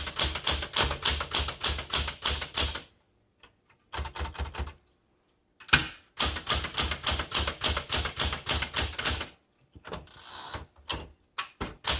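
Manual typewriter, a 1977 Smith Corona Classic 12, being typed on in quick runs of keystrokes at about six a second, with short pauses between runs. A softer stretch of mechanism noise and a few scattered clicks come near the end.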